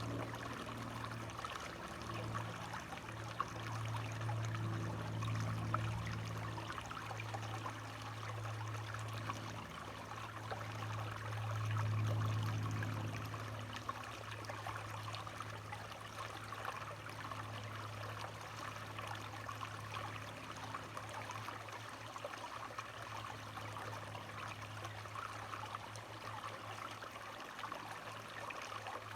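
Running water trickling steadily, like a small stream. Under it, a low hum swells during the first half and then fades back.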